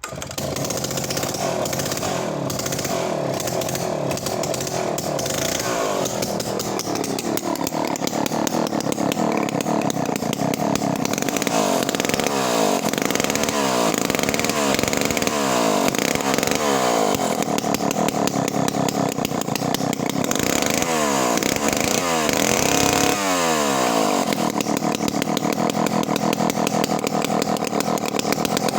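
1958 Solo Rex two-stroke chainsaw firing up and running, its throttle blipped several times so the revs rise and fall repeatedly in the middle before it settles back to a steady run.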